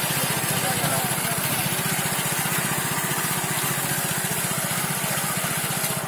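Kamco walk-behind crop reaper's small engine running steadily at working speed, with fast, even firing pulses. It runs under a dense rushing hiss as the cutter bar slices dry crop stalks and throws them aside.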